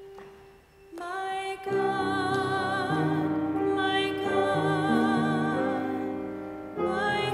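A faint held keyboard note, then piano chords enter about a second in, joined by a sustained melody line with vibrato. This is the opening of the responsorial psalm after the first reading.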